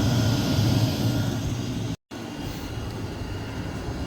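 WIPPRO diesel air heater running steadily: a steady low hum with its blower whirring. It drops out for an instant about halfway and comes back slightly quieter.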